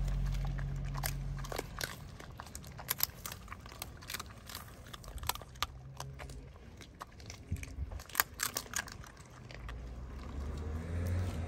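A large dog chewing raw meat close by, with irregular wet crunches and clicks.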